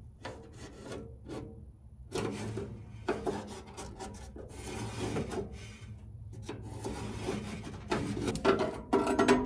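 A marker scratching along a steel ruler held against rusty car-body sheet metal, in a series of short scrapes, as a cut line is marked out.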